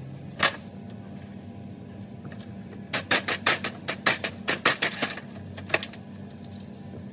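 Rubber mallet knocking on a cast metal differential housing: one knock about half a second in, then a rapid run of taps, about five a second, for some two seconds, and one more knock after. A steady low hum underneath.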